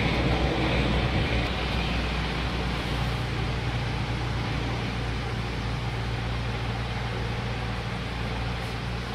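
Electric motor of paint tinting equipment running steadily: a low hum under an even whirring noise, slightly louder in the first second or two, then constant.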